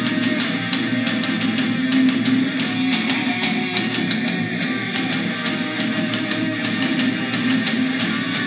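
Guitar-led music with a steady beat playing through a KDM SP 450 portable Bluetooth speaker during a sound-quality test, with strong bass.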